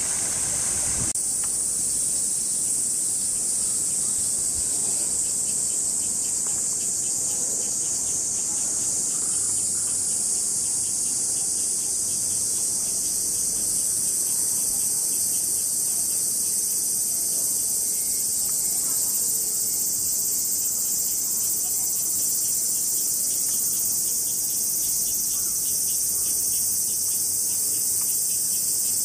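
Cicadas in a loud, steady, high-pitched chorus, with a fast pulsing buzz beneath it.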